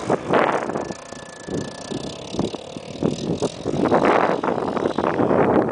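Gusting wind buffeting the microphone in irregular bursts, over the engine of a Honda three-wheeler ATV running faintly in the distance.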